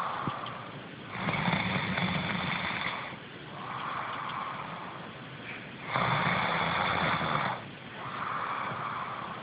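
A person snoring in a slow, even rhythm: two loud snores, one about a second in and one about six seconds in, each lasting a second and a half or more, with softer breathing between them.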